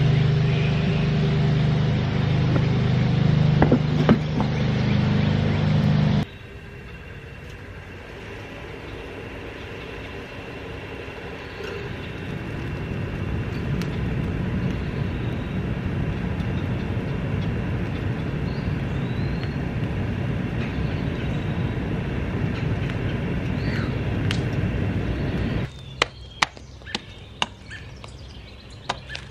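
A motor runs steadily for about six seconds and cuts off abruptly, giving way to a quieter steady low rumble. Near the end comes a series of sharp knocks: a hatchet chopping rotten wood from the base of a log stump.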